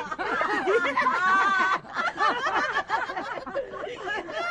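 Women laughing together, a put-on, forced laugh meant to look carefree. About a second in, one high, wavering laugh stands out above the rest.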